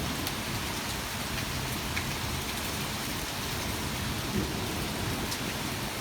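Heavy, torrential rain pouring steadily, with a low rumble of thunder following a lightning flash.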